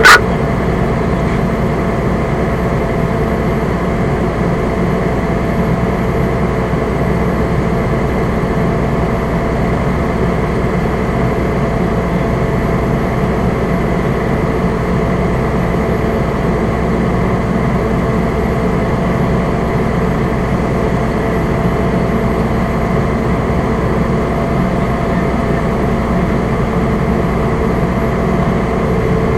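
Fire engine's diesel engine running steadily, heard from inside the cab: an even, unchanging hum with a few held tones.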